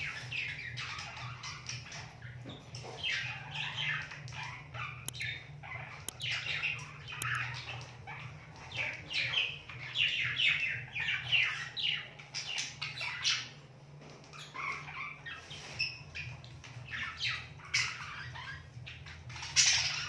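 Budgerigar chattering in quick runs of short chirps, thinning out briefly just past the middle, with the loudest chirp near the end.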